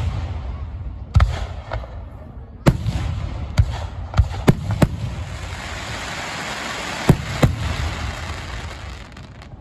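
Aerial firework shells bursting in quick succession, about nine sharp bangs. Partway through a dense crackling hiss from crackle stars builds up, then fades near the end.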